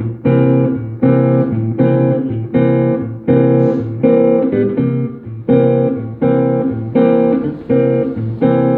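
Guitar strumming chords in a steady rhythm, about two strokes a second, playing through a 12-bar progression.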